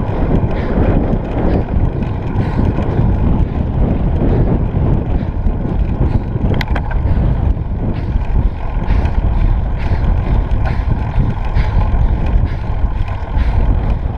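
Wind buffeting the microphone of a bike-mounted action camera on a road bicycle: a loud, constant rumbling rush, with a single sharp click about six and a half seconds in.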